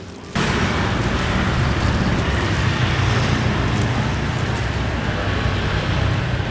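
Steady street traffic noise with a low rumble, cutting in abruptly a moment in.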